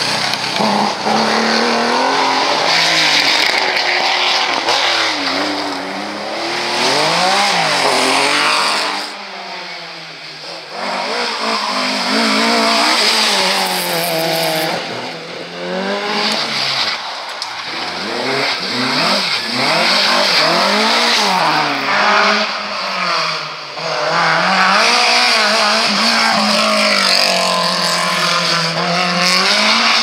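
Historic rally cars passing one after another at full throttle, among them an early Porsche 911 and a Mk1 Ford Escort. The engine note repeatedly climbs high and drops through gear changes and lifts, with brief lulls between cars, about ten and sixteen seconds in.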